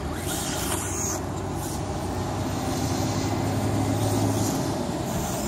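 Steady rumble of road traffic, with a brief hissing whoosh about half a second in and another near the end.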